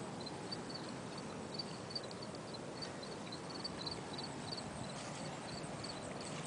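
Outdoor ambience by open water: a steady low rush of wind and water, with faint high chirps repeating through it.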